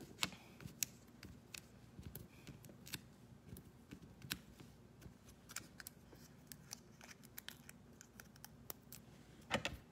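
Faint, scattered ticks and rustles of hands handling cardstock while foam adhesive dimensionals are peeled and pressed onto a paper circle, with a couple of slightly louder clicks near the end.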